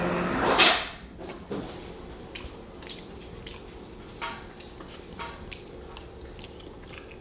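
Quiet eating sounds: chewing and small clicks and rustles of food and takeout containers, a beef patty being eaten. It is louder in the first second, then low with scattered small ticks.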